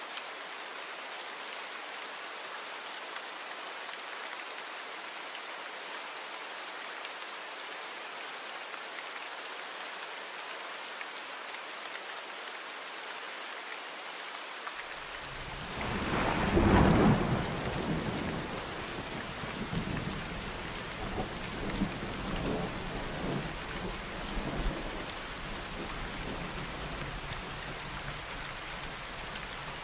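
Steady rain falling, with thunder about halfway through: a loud peal followed by rolling rumbles that die away over several seconds.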